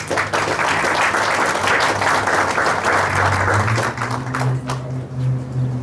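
Audience applauding, a dense patter of many hands clapping that dies away about four to five seconds in. A low steady hum comes in under it past the midpoint.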